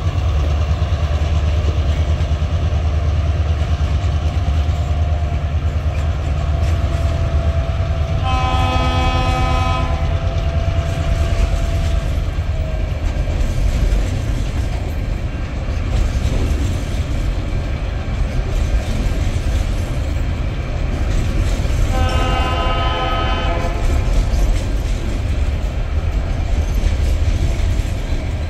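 Freight train wagons rolling past with a steady low rumble. A locomotive horn sounds two blasts from up the line, about 8 seconds and 22 seconds in, each lasting about a second and a half.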